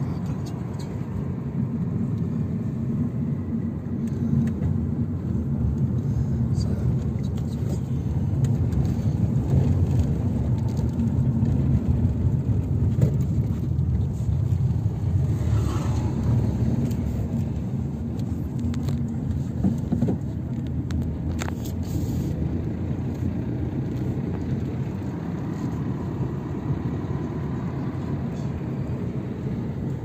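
Steady low engine and road rumble heard from inside a moving car's cabin.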